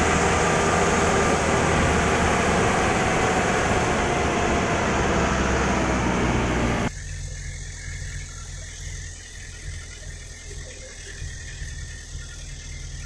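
Bus engine and road noise heard from inside the cabin while driving. About seven seconds in, the sound drops abruptly to a much quieter, steady low engine drone.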